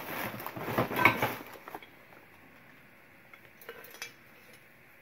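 Glassware and other small hard items clinking and clattering together as a box is rummaged through, busiest in the first two seconds, then a couple of faint clicks.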